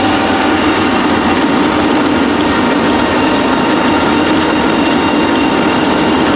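ELF Systems Pellet Mill 772 running steadily while pressing wild artichoke biomass into pellets: a constant, loud machine drone with a steady hum running through it.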